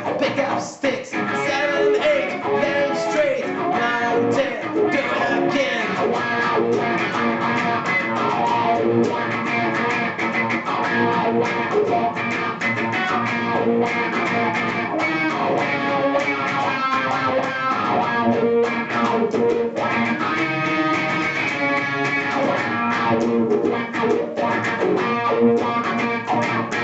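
Instrumental funk-style song with guitar playing throughout and no singing.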